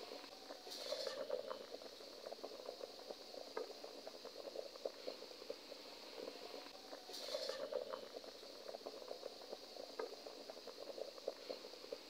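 Water at a rolling boil in a pot: faint, continuous bubbling and popping. It swells briefly about a second in and again about seven seconds in.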